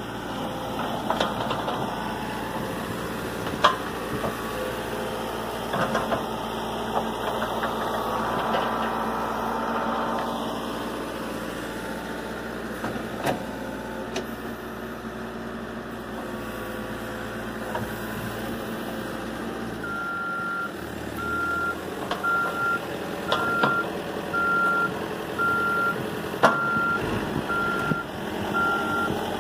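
Caterpillar backhoe loader's diesel engine running under load while the backhoe digs out a tree stump by the root, with a few sharp knocks. From about two-thirds of the way in, its reversing alarm beeps about once a second.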